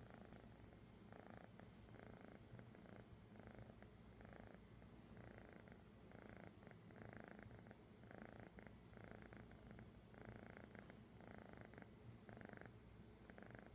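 Kitten purring, faint and steady, the purr pulsing about twice a second.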